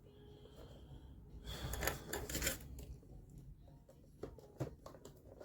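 Faint rustling and light clicks of a cardboard headphone box being handled, with a burst of rustling about two seconds in and a few short taps near the end.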